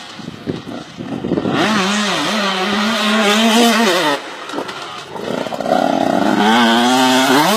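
KTM 150 two-stroke motocross bike's single-cylinder engine being ridden hard: quieter and crackling at first, then revving high from about one and a half seconds in, easing off near four seconds, and revving up again high about six seconds in.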